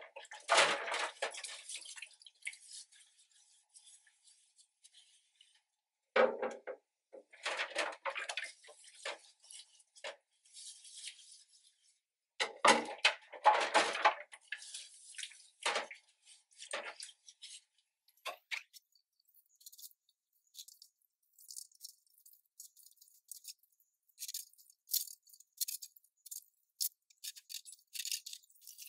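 Dishes being washed by hand in a stainless steel sink: water splashing and dishes clinking in three bursts with short pauses between them. After that only faint light ticks remain.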